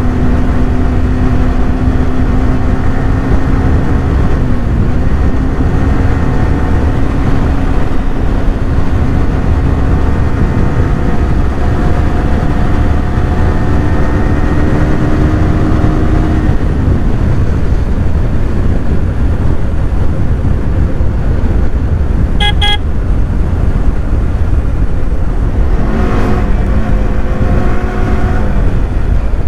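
Motorcycle engine running at a steady cruise over heavy wind rush, its note dropping away about halfway through. A short horn beep sounds about two-thirds of the way in, and another engine note comes and goes near the end.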